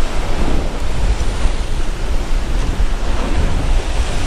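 Ocean surf washing and breaking against the rocks below a sea cliff, with wind buffeting the microphone.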